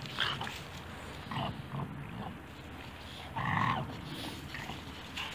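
Dogs making a handful of short vocal noises, the longest and loudest about three and a half seconds in.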